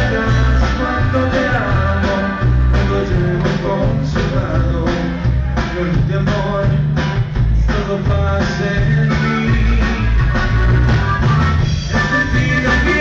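Live band playing a song, with electric bass, acoustic guitar and drums, recorded from the audience.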